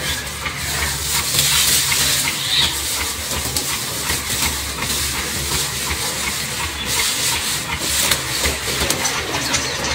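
Dry grass and straw rustling and crackling close by, with soil being scraped as hands dig through it, over a steady low hum.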